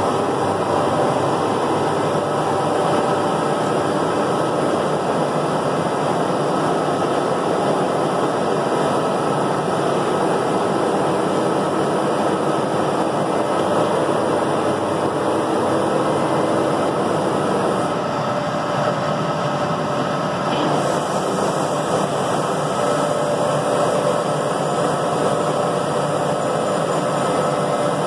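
Mandelli CNC milling machine running: steady machine noise with faint whining tones, its sound shifting briefly about eighteen seconds in.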